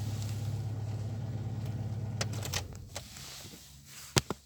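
Chery Amulet's engine idling steadily at about 1000 rpm, a high idle that goes with fault code P0507 (idle speed higher than expected). About two and a half seconds in, the engine sound stops as it is switched off, and a couple of sharp clicks follow near the end.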